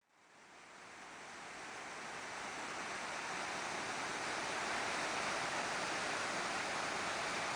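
Steady rush of water falling at Chitrakote Falls, a wide waterfall on the Indravati River, fading in over the first few seconds and then holding even.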